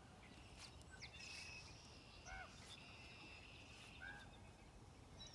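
Faint bird calls: a short, arched call repeated about every two seconds, over a steady high-pitched trilling in the background.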